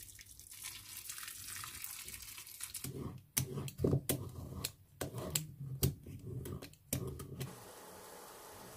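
Water poured from a kettle into a frying pan of asparagus, then a vegetable peeler scraping along a root vegetable in a series of sharp strokes, about two a second. Near the end, a quiet steady simmer of the water in the pan.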